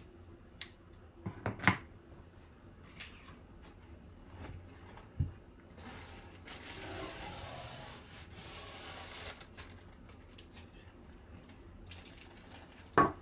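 Packaging being torn and pulled off a baseball bat: tape and foam wrap ripped and peeled, with a few seconds of plastic and foam rustling in the middle. A few sharp knocks and a thud come as the bat and wrapping are handled, the loudest near the start and just before the end.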